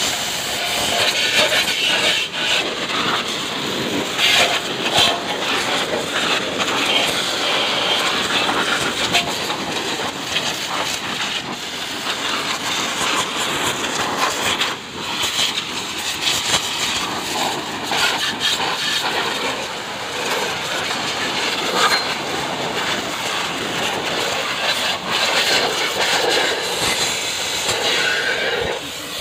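HTP high-pressure pump washer running, its lance jet hissing and spattering water onto a motorcycle's wheels and engine. The spray wavers in level as the jet moves across the bike.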